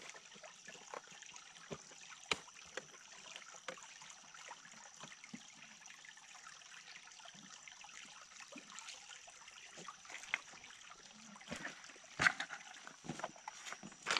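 Water trickling as it is poured into a Model T's radiator, with scattered small clicks and a few louder knocks near the end.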